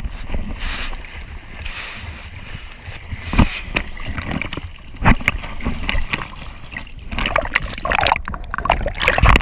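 Water splashing and sloshing around a whitewater raft, broken by several sharp thumps.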